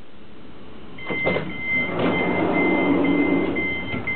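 Double-decker train's passenger door opening after its push button is pressed: a few clicks about a second in, then the door mechanism running with a rushing mechanical sound while a high warning beep repeats about three times a second.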